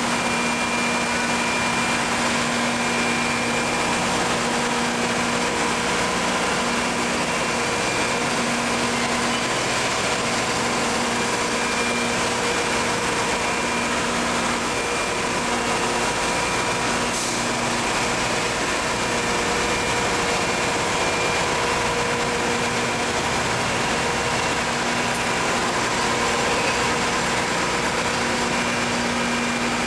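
Techclean dry ice production machine running with its hydraulic pump motor on: a steady mechanical hum and hiss with a few held tones, unchanging throughout.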